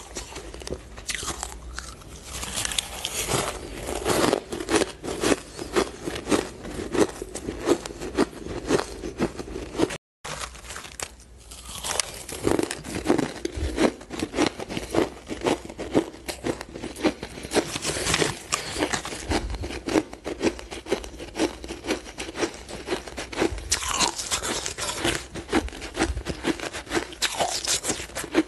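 Powdery shaved ice being chewed, a rapid, steady run of crisp crunches with a brief break about a third of the way in.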